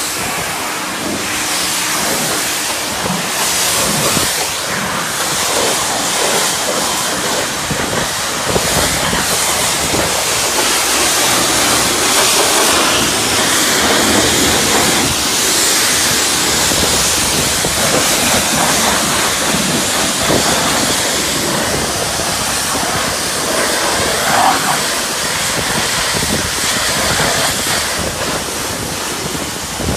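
High-pressure washer wand spraying at a self-service car wash: a steady, loud hiss of water jetting onto the car.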